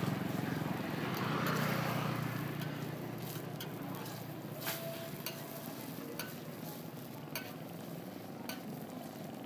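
Pancake frying with a steady sizzle, and sharp metal clicks of a spatula or utensils at irregular intervals from about three seconds in. A low rumble is louder in the first two seconds and then fades.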